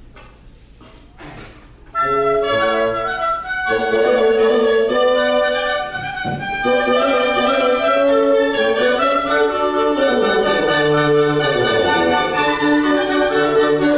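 Orchestra woodwind section playing a passage together, coming in strongly about two seconds in after a few faint knocks; near the end a low part runs downward in pitch.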